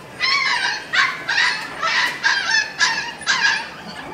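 Dogs barking: a quick run of about eight high-pitched yapping barks, roughly two a second.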